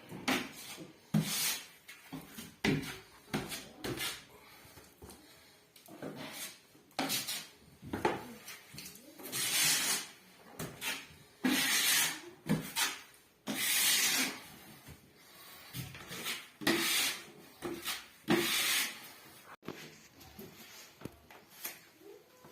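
Steel putty knife scraping filler across drywall: a run of irregular scraping strokes, several of them about a second long, with shorter scrapes and light knocks between.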